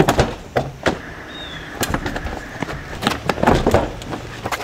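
A scuffle against the side of a school bus: an uneven string of knocks, thumps and scrapes from bodies, hands and a canvas bag hitting the bus panel and shoes on the pavement.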